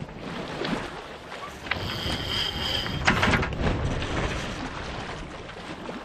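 Wind buffeting the microphone and water rushing along the hull of a sailboat under sail, swelling for a few seconds in the middle. Partway through there is a brief high steady tone, then a short clatter of clicks.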